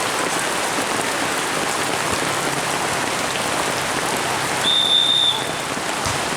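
Heavy rain pouring steadily. About three-quarters of the way through, a single whistle blast, a steady high tone held for about half a second, typical of a volleyball referee's whistle.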